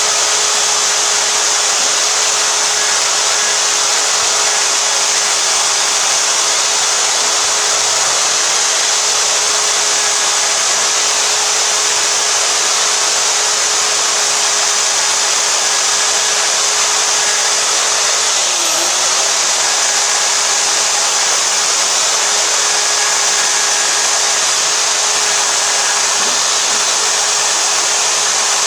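Electric drill spinning a wire wheel in the valve seat of a Briggs and Stratton engine's cylinder head, scrubbing carbon off the metal: a steady whirring hiss over a steady motor tone. About two-thirds of the way through, the drill briefly slows under load and picks back up.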